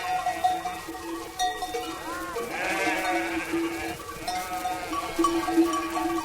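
Sheep bleating, with one long wavering bleat about two seconds in, over background music.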